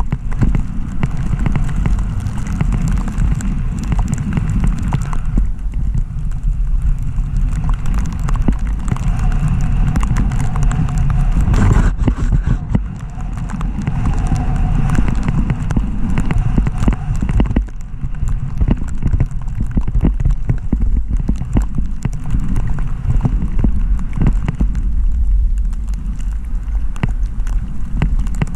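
Skis running and scraping over thin early-season powder, with dense chattering clicks where the edges hit hard snow and rocks, under heavy wind rumble on the microphone.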